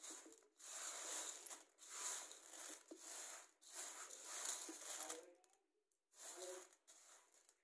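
Dry horse gram seeds rustling and rattling against a metal plate as a hand sweeps through them, sorting out grit and stones. The rustling comes in a run of strokes about a second each, with a longer pause near the end before two shorter strokes.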